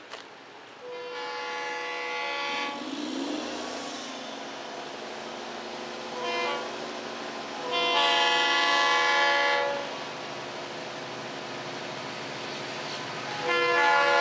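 Freight locomotive air horn sounding for a grade crossing as the train approaches: a long blast of several tones at once, a short one, another long one, and a fourth long blast starting near the end, over a steady background rumble.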